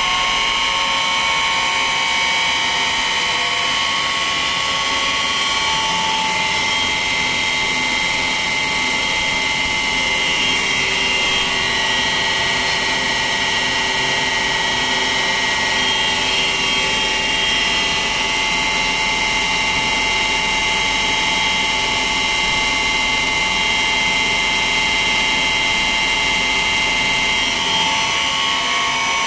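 Three-phase induction motor running on an ABB ACS variable-frequency drive, giving a steady whine of several high tones over a hiss. The tones shift in pitch a few times as the drive's speed setting is changed on the keypad.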